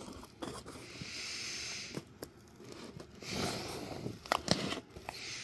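A cardboard shipping box being torn open and unpacked: two long ripping strokes, about a second in and past three seconds, with sharp knocks and rustling of the packaging between them.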